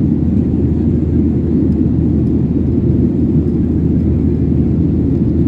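Steady low rumble of engine and airflow noise inside the cabin of a Boeing 737-800 in flight, from its CFM56-7B turbofan engines.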